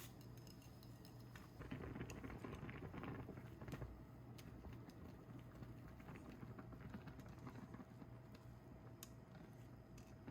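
Faint kitchen food-preparation sounds: soft rustling and light clicks and clinks, busiest from about two to four seconds in.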